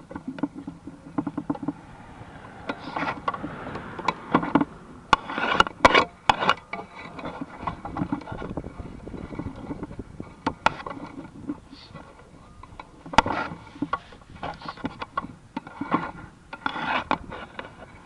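Irregular scraping, rubbing and sharp knocks, several loud knocks close together about five to six and a half seconds in and another about thirteen seconds in.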